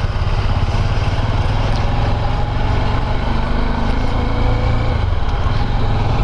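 Motorcycle engine running with a steady, loud low rumble.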